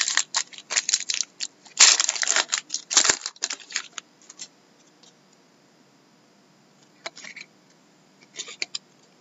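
Foil trading-card pack wrapper torn open and crinkled: a dense run of crackling for about four seconds. After that it is mostly quiet, with two brief rustles as the cards are slid apart near the end.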